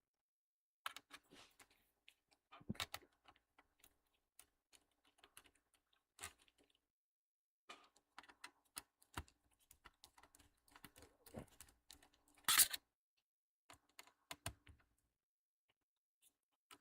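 Faint, irregular small clicks and scratchy ticks of a screwdriver working the screws out of a laptop's bottom cover, with one louder short scrape about twelve seconds in.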